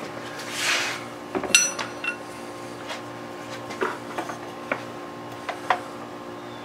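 A sharp metal clank with a short ring about one and a half seconds in, as a steel pipe used as a lever is set down on the workbench, followed by a few light knocks of metal parts being handled on a cutoff saw.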